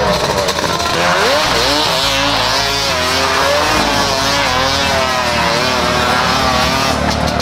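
Side-by-side UTV engine revving up and down over and over while the vehicle spins donuts, its tyres spinning and sliding on the loose dirt.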